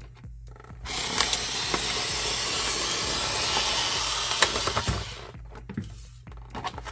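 A cutter drawn along the edge of a plastic clamshell package, a steady hissing scrape lasting about four seconds, followed by a few clicks of the plastic.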